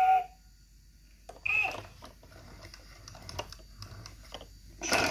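Fisher-Price Laugh & Learn ABC Train toy being played with. Its electronic voice cuts off at the start, a short electronic vocal sound comes about a second and a half in, then faint plastic clicks and taps as its buttons are pressed, and a sharp click near the end.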